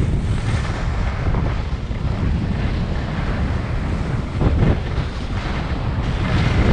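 Wind buffeting the microphone of a camera carried by a skier moving downhill, mixed with the hiss of skis sliding over packed snow; the rushing swells a couple of times.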